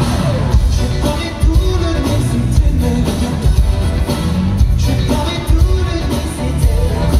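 Live disco-pop song played loud through an arena sound system, with a heavy regular bass beat and a male lead voice singing over the band.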